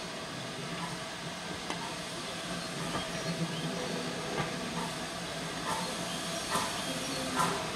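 Steam locomotive working slowly with a train of coaches, with a steady hiss of steam under the rolling of the train. Over the last couple of seconds sharp exhaust beats come in, a little under one a second.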